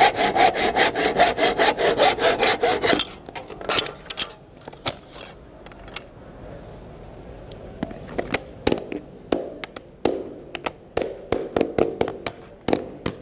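Hand saw cutting through hardwood strip flooring in fast, even strokes, stopping about three seconds in. Then scattered knocks of loose wood pieces, and near the end a run of light hammer taps setting the cut boards in place.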